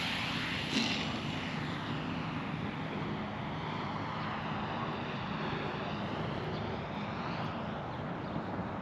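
Electric RC model plane with a 41 mm pancake brushless motor swinging a 15-inch prop, flying past at about half throttle: a steady propeller drone whose tone sweeps slowly as the plane passes.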